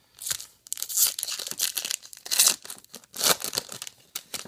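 Foil wrapper of a Topps Star Wars trading card pack being torn open and crinkled by hand, in several separate bursts that die away near the end.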